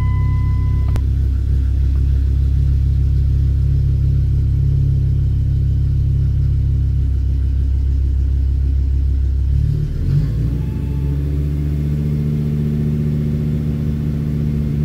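Dodge Ram's 8.0-litre Magnum V10 running just after a start, holding a steady fast idle, then brought up to a higher steady engine speed about ten seconds in. A steady high beep stops with a click about a second in.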